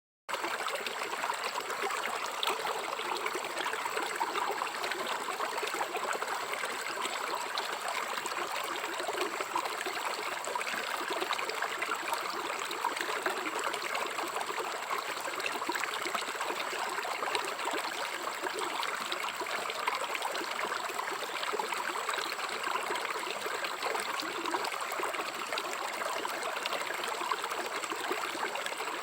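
River water flowing steadily, an unbroken babbling rush of stream water.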